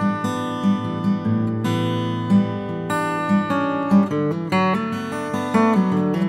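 Background music on acoustic guitar: a run of plucked notes and chords.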